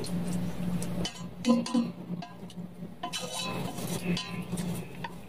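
Chopsticks clinking and scraping against a stainless steel pot and a bowl as noodles are lifted out, a few short clinks with a brief ringing about one and a half seconds in. A steady low hum runs underneath.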